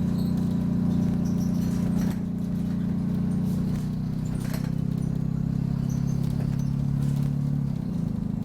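Optare Solo bus's diesel engine running under way, its note shifting about two seconds in and again near the end, with faint high squeaks and light rattles from the bus body.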